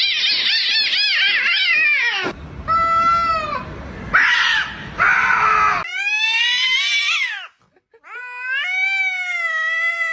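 A cat yowling and meowing in a series of long, drawn-out calls: the first wavers rapidly up and down, a later one falls in pitch, and the last is held steady for about two seconds. The calls break off abruptly between one another.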